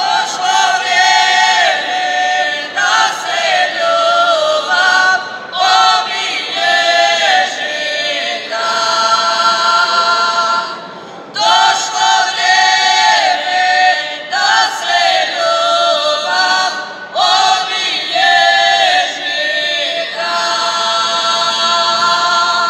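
A women's folk singing group singing a traditional Banija folk song a cappella, in long held phrases broken by short pauses.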